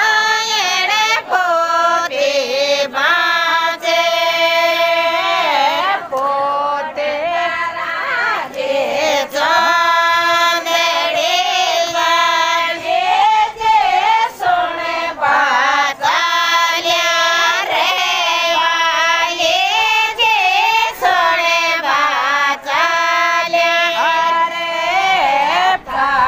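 A group of women singing a Rajasthani Shekhawati folk song (lokgeet) together, in high voices with long held, bending notes.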